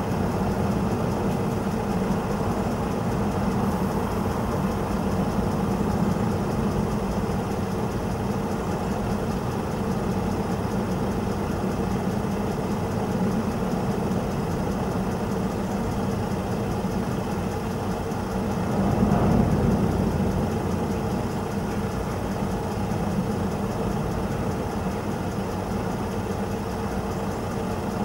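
Steady hum of idling lorry diesel engines and road traffic, with a short swell in loudness about two-thirds of the way through.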